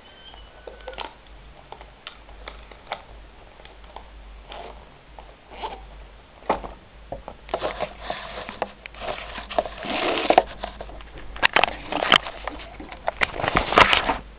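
Handling noise from a hand-held camera: scattered soft clicks at first, then louder rustling and knocks from about halfway as the camera is moved and rubbed against fabric, loudest near the end.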